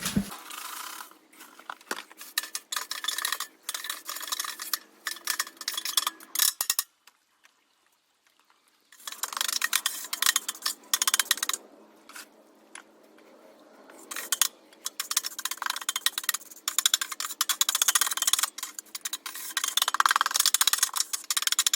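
Irregular scraping, rubbing and clicking of hand work on hard material, with a pause of about two seconds a third of the way in.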